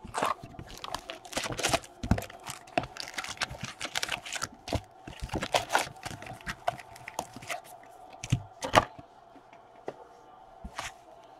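Foil trading-card packs crinkling and rustling as they are handled, pulled from a cardboard hobby box and laid on a table. Quick crackles and clicks come thick and fast, then thin to a few near the end.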